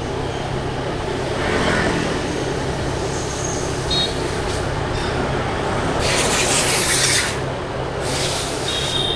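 Steady running noise of a moving road vehicle, a low hum throughout, with two loud bursts of hiss about six and eight seconds in.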